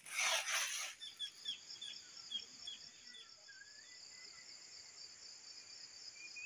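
After about a second of loud hissing noise, outdoor garden ambience: a steady high insect buzz with an even pulse, birds chirping over it, first a quick run of short falling chirps and then a wavering call.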